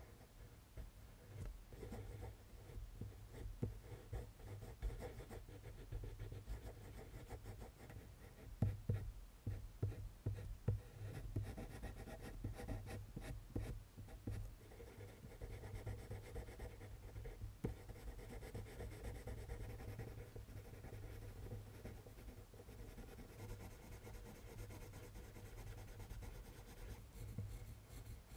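Prismacolor colored pencil scratching and rubbing on drawing paper in many short shading strokes, laying down dense dark tone.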